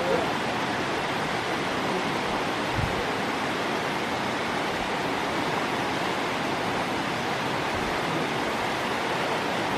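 Rushing water of a mountain creek below a waterfall, a steady, even roar.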